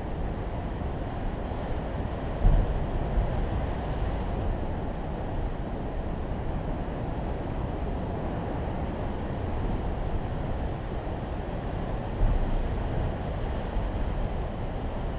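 Sea surf churning against the rocks below, with wind on the microphone. Two louder low thumps come about two and a half seconds in and again about twelve seconds in.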